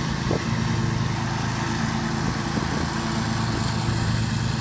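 Scag Tiger Cat II zero-turn mower engine running steadily under load while mowing, with an even hum.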